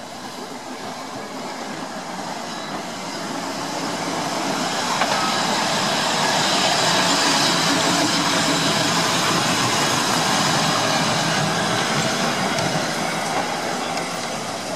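Electric tramcar No. 331 passing close by on street track, its steel wheels running on the rails. The sound builds to a peak about halfway through, then slowly fades.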